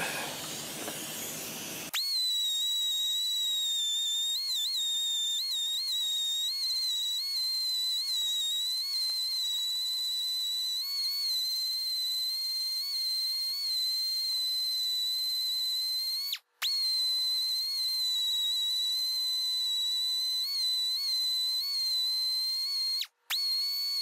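Hand-held grinder whining at a high pitch as it grinds down Lock-N-Stitch pins set in a crack in a cast-iron engine block, dressing the repair flush. The pitch dips slightly now and then as the wheel bears on the metal. It starts about two seconds in and breaks off for an instant twice.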